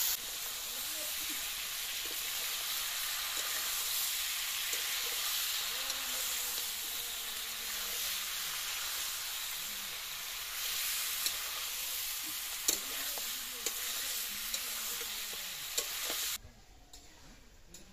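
Chicken and fresh tomato pieces sizzling in hot oil in a kadai, with a metal spatula scraping and clicking against the pan as they are stirred. The sizzle cuts off suddenly near the end.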